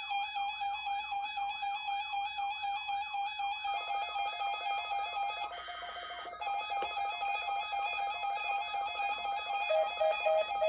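Several electronic weather-alert receiver alarms sounding together in response to a NOAA Weather Radio test signal. A looping warble repeating about three times a second over a steady beep tone gives way to steady tones, and near the end a lower tone starts beeping about three times a second.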